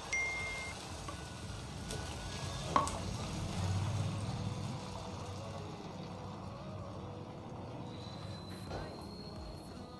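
Egg and drumstick-leaf omelette batter sizzling on a hot black iron tawa as it is poured and spread with a steel ladle, with one sharp clink of the ladle against the pan about three seconds in.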